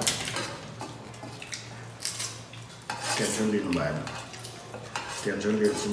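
Eating by hand from metal plates: fingers mixing and scooping rice against the plate, with a few sharp clinks and scrapes of the metal plates.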